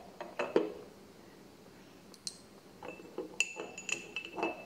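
Small ceramic spoons clinking as they are handled, knocking against each other and the ceramic jars. There are a few light knocks in the first second, then a quick run of clinks with short high pings in the last second and a half.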